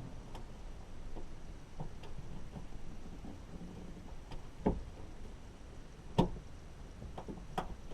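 Scattered light clicks and knocks from hand work on a car door's lock and handle parts, with two sharper knocks about halfway through and shortly after.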